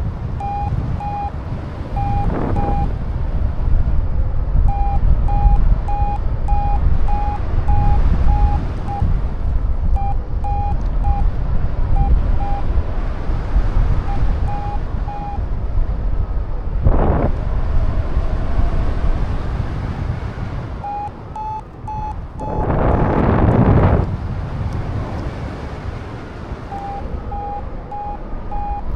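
Paragliding variometer beeping in short, evenly spaced pulses, about two a second, in several stretches that stop and start again. The beeping marks the glider climbing in rising air. Strong wind buffets the microphone throughout, with a louder gust about three-quarters of the way through.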